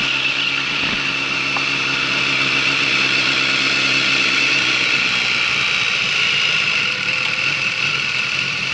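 Motorcycle engine running at a steady, even pitch while riding a lap of a track, over a constant hiss.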